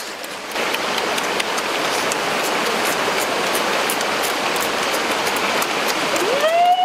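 Steady rushing of a small stream or waterfall. It comes in about half a second in, with a few faint clicks on top. Near the end a sliding, pitched tone starts to rise.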